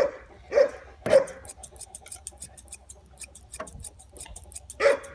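Thinning shears snipping through a Newfoundland's thick foot hair in quick, repeated small clicks. A dog barks three times at the start and again near the end.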